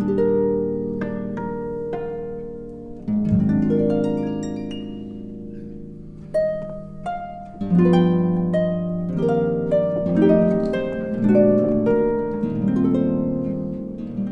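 Instrumental intro music of plucked string notes, each struck sharply and left to ring and fade, overlapping in gentle chords.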